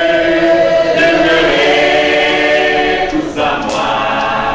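Mixed choir of men and women singing a hymn, holding long notes together; the notes shift about a second in and a new phrase begins a little after three seconds.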